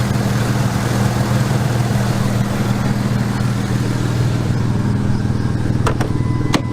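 2001 Ford F150's 4.2-litre V6 idling steadily while misfiring on cylinders 1 and 3. Two sharp clicks sound near the end.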